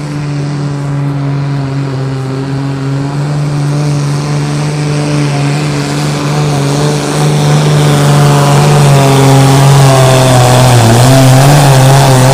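Super Sport class pulling tractor's diesel engine running flat out under heavy load, growing steadily louder. Its pitch dips and wavers about ten seconds in.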